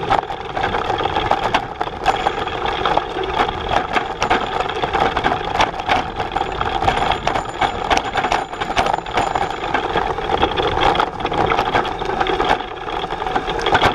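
Bullitt cargo bike rattling as it rides over a bumpy dirt and leaf-strewn trail, with many short knocks from the frame and cargo box over a steady hum.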